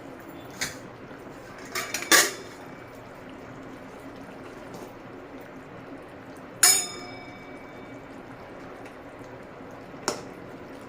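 A metal utensil clinking against a metal cooking pot four times over a steady hiss; the loudest hits come about 2 s and 7 s in, and the second of these rings on briefly like struck metal.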